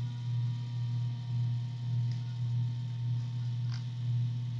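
A steady low background hum that wavers slowly in level, with two faint clicks about two and three and a half seconds in.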